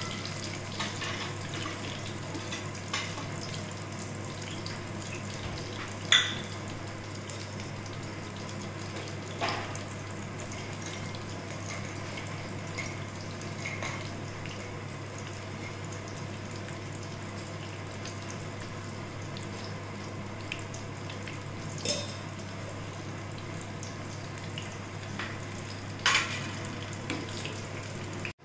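Gram-flour-battered green chillies (mirchi bajji) deep-frying in hot oil: a steady, even sizzle, with a few sharp clicks standing out from it and a faint low hum underneath.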